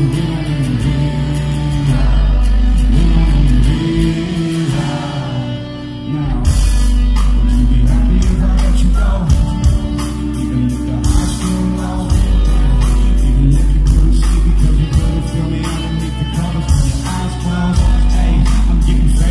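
Live rock band with a singing vocalist playing loudly in a concert hall, dominated by heavy bass. About six seconds in, after a softer stretch, the full band with drums and cymbals comes back in harder.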